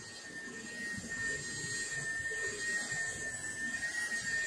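Dremel rotary tool on a flexible shaft running with a steady high whine, its spinning cotton-bud tip held against the prongs of a soldering iron's power plug to clean them.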